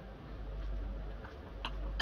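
Steady low background hum, then near the end a couple of light clicks of a metal spoon against a glass mixing bowl as mixing begins.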